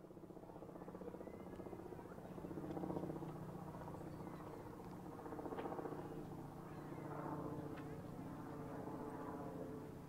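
Steady low drone of a large lake freighter's engines as the ship passes close by, with faint voices murmuring in the background.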